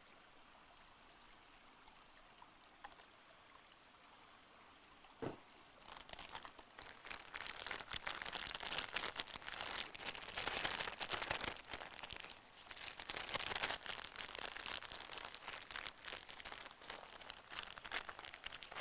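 Plastic zip-top bag crinkling and rustling in irregular crackles as shrimp are worked by hand inside it to coat them in oil and chili rub. It begins about six seconds in, after a near-quiet stretch broken by a single click.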